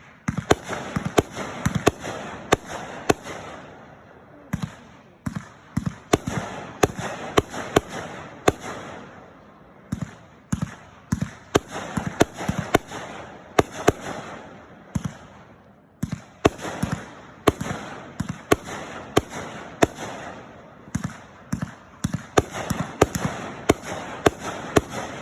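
A fireworks display: a rapid series of aerial shell bursts, often several bangs a second, with crackling tails between them and a few short lulls.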